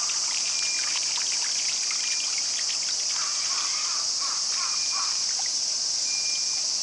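Steady high hiss of water running and trickling in a penguin pool, with small splashes from swimming Humboldt penguins and a few short, faint, high chirps.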